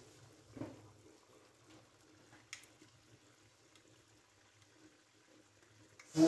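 Beaten egg poured into a karahi of simmering tomato and potato on a gas flame, with faint sizzling and bubbling from the pan and a soft splash just after the start. A brief, louder knock comes near the end.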